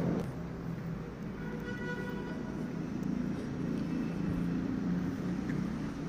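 Outdoor street ambience: a steady low rumble of distant road traffic, with a faint brief tone about two seconds in.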